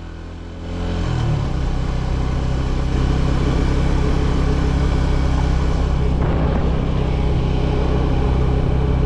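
Motorcycle engine pulling uphill under throttle. It gets louder about a second in, then runs at a steady, low-revving note in third gear, a gear too high for the slope, so the engine lacks power.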